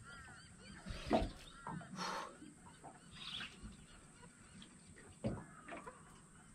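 Birds chirping with short arched calls, repeated many times, over a few sharp knocks and a brief rasp from a man handling a fishing rod in an aluminium boat.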